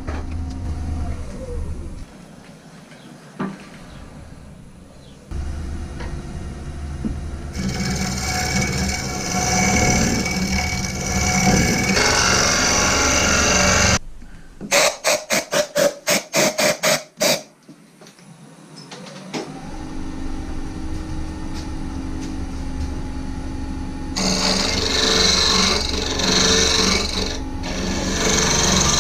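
Wood lathe running while a hollowing tool cuts inside a turned wooden hollow form, giving a steady motor hum with scraping and hissing from the cut. The motor winds down about a second in and spins back up after a run of quick, even pulses about halfway through.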